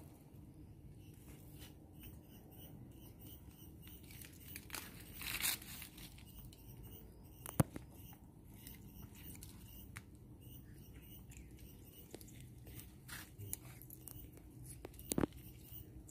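Faint rustling and scraping of a baby monkey clambering on tree branches, with a few sharp clicks, the loudest about seven and a half and fifteen seconds in.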